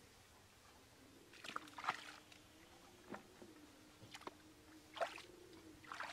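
Hand digging in damp earth, with a handful of short, faint scrapes and rustles at irregular intervals over a faint steady hum.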